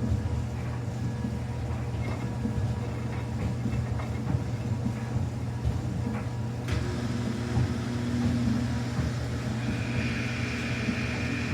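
Samsung front-loading washing machine running a quick-wash cycle with a steady low hum and rumble. About seven seconds in a hiss rises and a higher hum joins, with a higher whine added near the end.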